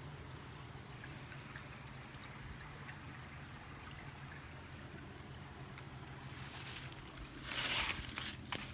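Steady outdoor background noise with a constant low hum, and a short louder rustling or scraping noise near the end.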